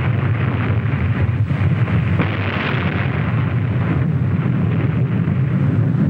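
Atomic bomb explosion: a steady, loud rumble that carries on without a break as the fireball rises.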